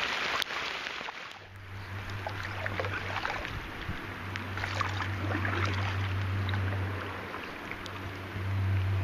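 Kayak paddling on a river in rain: water splashing and dripping around the paddle and hull, with the patter of raindrops. A low, steady hum comes and goes several times.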